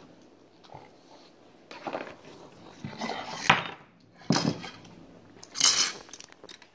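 Scattered knocks and clinks of a cup being handled on a table, with one sharp knock about three and a half seconds in and a short hissy noise near the end.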